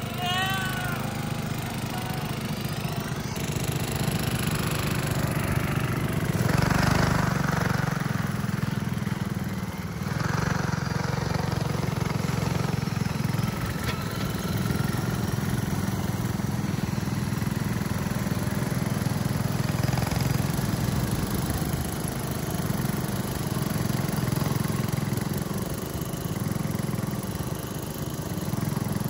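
Small engine of a stripped-down Murray riding mower converted into a race mower, running steadily as the mower is test-run, with a louder stretch about seven seconds in.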